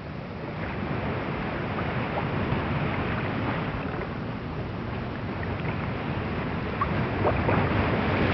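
Ocean surf: a steady rushing wash of waves that grows a little louder toward the end, with a few short faint high sounds about seven seconds in.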